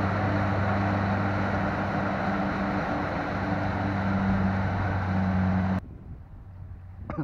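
Combine harvester cutting and threshing rice, running with a steady engine drone. It cuts off abruptly near the end, leaving a much quieter background.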